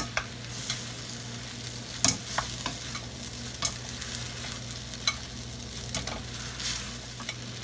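Glass noodles and vegetables sizzling in a stainless steel skillet as they are tossed with a wooden utensil and a metal spatula, with repeated scrapes and clacks of the utensils against the pan, the loudest about two seconds in.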